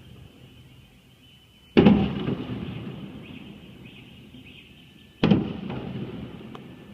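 Two aerial fireworks bursting, about three and a half seconds apart: each a sharp loud bang followed by a rumbling echo that fades over a second or two.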